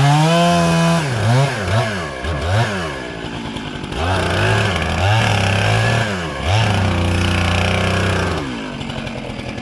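Chainsaw engine revving in quick rising and falling surges, then held at high revs for a few seconds at a time, before dropping back to a steady idle near the end.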